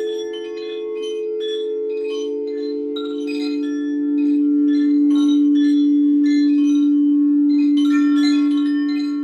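Crystal singing bowls sounding low, sustained tones, a deeper bowl swelling up about two seconds in, while chimes ring in scattered clusters of bright, short notes above them.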